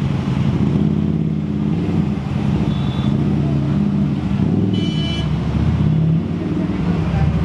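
A motor engine running steadily with a low rumble, with two brief high-pitched tones about three and five seconds in.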